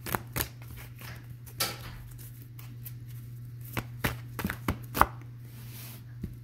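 Tarot deck being knocked and tapped by hand to cleanse it: a string of sharp, irregular knocks, the loudest about five seconds in, with a couple of brief papery slides of the cards.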